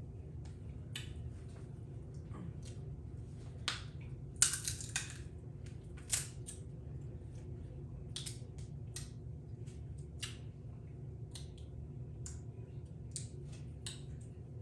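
Snow crab leg shells being cracked and snapped apart while eating: a run of irregular sharp cracks, the loudest about four and a half and six seconds in, over a steady low hum.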